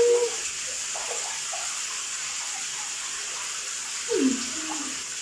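Water running steadily in a bathroom shower, a constant hiss. A woman's voice sounds briefly at the very start and again, in a short sliding hum, about four seconds in.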